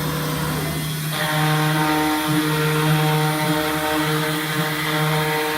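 1325 ATC CNC router running, a steady machine hum with a whine from the spindle and drives. About a second in the tone shifts and the sound grows louder, as the machine changes its load or motion.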